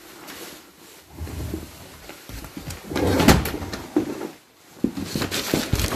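Cabinet drawers sliding and knocking as they are pulled open and pushed shut, with the loudest knock about three seconds in and lighter clicks and rattles after.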